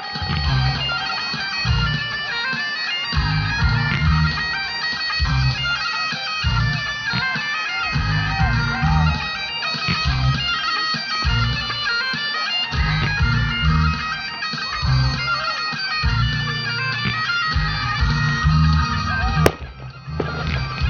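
Bagpipe music playing, a held drone under a moving melody, with repeated heavy low thuds beneath it. A single sharp crack comes near the end.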